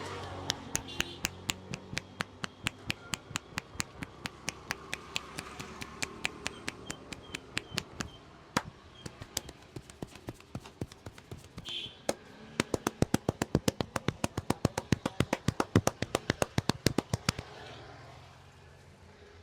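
Rhythmic percussive strokes of an Indian head massage, the barber's hands striking the head in sharp claps: about three a second for the first eight seconds, then after a short pause a faster run of about five a second that stops near the end.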